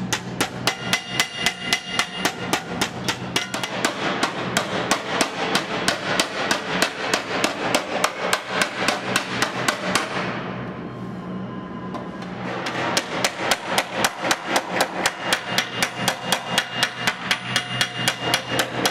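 Hand hammer striking the edge of a sheet-metal panel held against a steel bench, folding over a flange: quick, ringing metal-on-metal blows, about four a second. The hammering stops for about two seconds midway, then resumes at the same pace.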